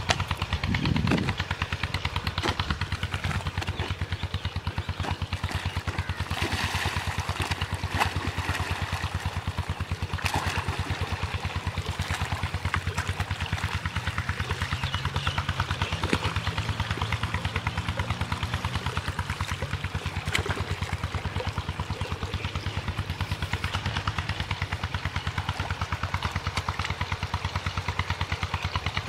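An engine running steadily with a fast, even beat. A hoe thuds into the earth bank of the channel about a second in.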